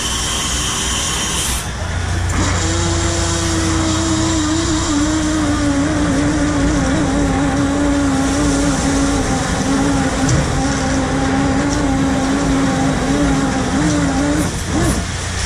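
Shrimp trawler's engine droning steadily, with a hydraulic winch whining under load from about two seconds in until near the end, its pitch sagging slightly as the trawl is hauled up at the stern.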